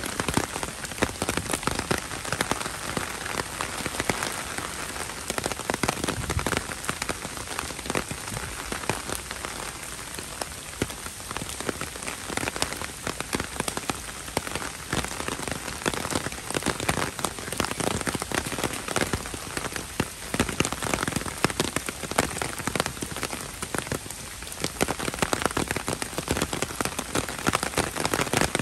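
Heavy rain pouring steadily, with a dense patter of individual drops hitting close by.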